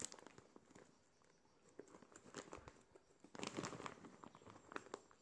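Clear plastic bag of dried pig-ear dog chews crinkling and rustling as it is handled and turned over, in a few short bursts with light clicks.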